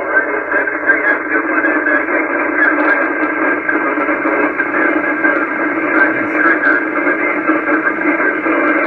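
Received 10-metre FM repeater audio from a Kenwood HF transceiver's speaker: a loud, steady, narrow-band radio signal that drops off near the end.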